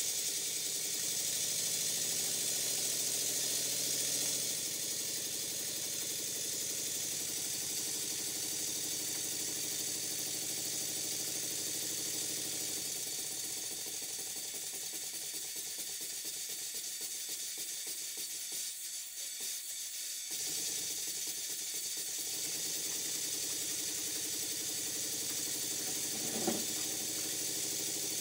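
Stuart Double 10V twin-cylinder model steam engine running on compressed air, with a steady hiss of exhaust air over a fast, even mechanical beat from the valves and cranks. It is running freely on its oiled slide valves and cylinders. The sound dips briefly about twenty seconds in, and there is a single sharp click near the end.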